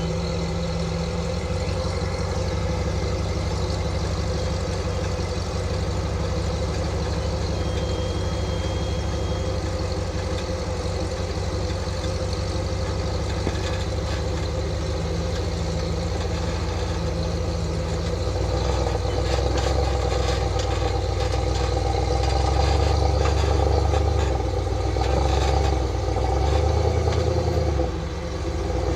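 Vehicle engine running steadily under way, with rattling and clatter. It gets louder and works harder about two-thirds of the way through, then dips briefly near the end.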